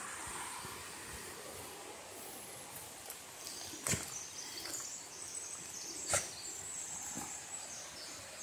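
Quiet forest ambience with faint, high, thin bird calls starting about three and a half seconds in, and two sharp clicks about two seconds apart.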